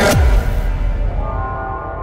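Electronic intro music: a hit with a steeply falling bass sweep at the start, then a held synth chord that slowly fades.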